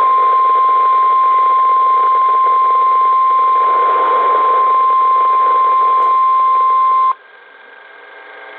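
NOAA Weather Radio 1050 Hz warning alarm tone, one loud steady beep with hiss behind it, coming through a weather radio's speaker during the weekly test. It cuts off suddenly about seven seconds in, leaving a faint hum with a few steady tones.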